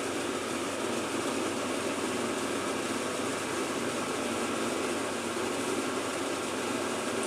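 Exhaust fan running with a steady, even whooshing noise.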